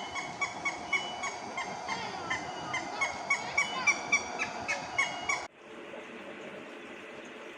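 A flock of birds giving many short, overlapping calls, several a second. About five and a half seconds in it cuts off abruptly to a steady hiss.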